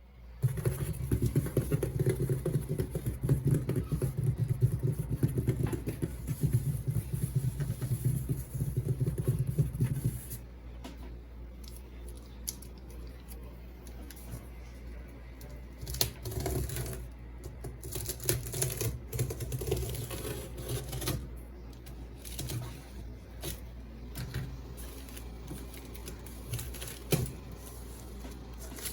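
Close-up handling of toy and candy packaging: a dense, rapid crackling and clicking for about ten seconds, then quieter, with scattered light taps and clicks.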